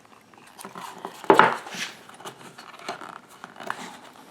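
Hand-handling sounds of wiring and parts being pushed into the lathe's speed-controller box: scattered small clicks and rustles, with one louder knock and a brief scrape about a second in.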